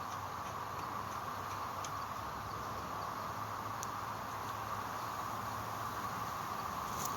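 A steady, even drone centred in the middle range, with a few faint, light clicks scattered through it.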